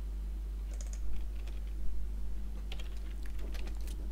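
Typing on a computer keyboard: a few scattered keystrokes about a second in, then a quicker run of keys near the end, over a steady low hum.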